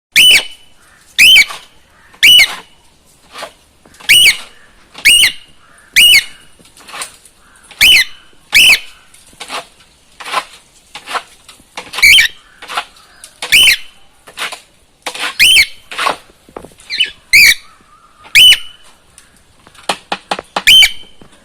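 Cockatiel calling: loud, short, shrill calls repeated over and over, about one a second, with a few quicker, clipped ones near the end.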